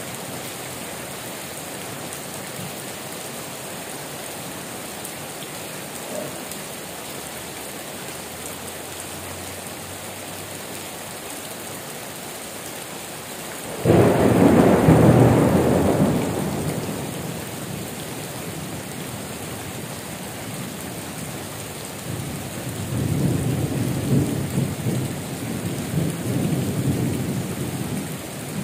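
Steady heavy rain with thunder: a sudden loud thunderclap about halfway through that fades over a few seconds, then a longer rumble of thunder near the end.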